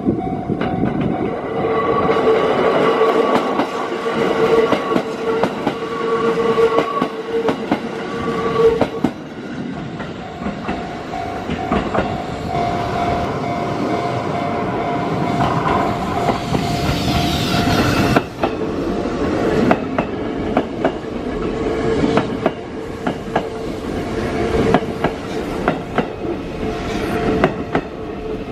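Sanyo Electric Railway trains (6000 and 3000 series) running past, their wheels clacking over the rail joints, with steady tones held alongside the running noise. The sound changes abruptly twice, at about a third and two-thirds of the way through, as one pass gives way to another.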